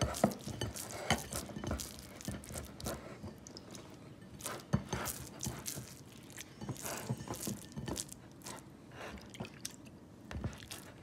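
Wet hands squeezing and patting soft ragi kali dough (finger millet and rice) into a ball in a ceramic bowl: irregular sticky, squishy smacks.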